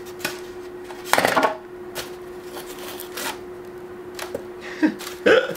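Rustling and crinkling of packaging as items are lifted out of a cardboard shipping box, with a loud rustle about a second in and scattered smaller crinkles after it. A steady low hum runs underneath.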